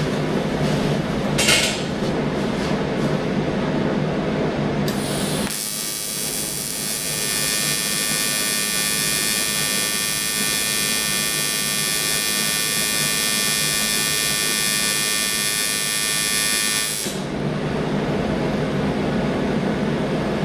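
An AC TIG welding arc on aluminum, set to 110 Hz AC frequency and run at low amperage for tacking: a steady, high buzz that starts about five seconds in, holds for about eleven seconds and cuts off sharply. A low steady hum runs beneath it.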